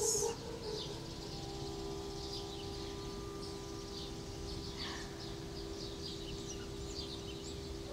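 A harmonica holding a steady chord of low notes, a second note joining about a second in, while small birds chirp now and then.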